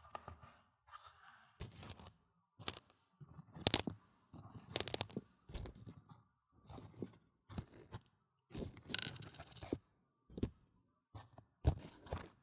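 Dry mung beans rattling and crackling against the silicone ear of a binaural microphone as they are stirred and pushed around. The sound comes in short, uneven bursts of gritty clicking about once a second, with quiet gaps between and a few sharper clicks standing out.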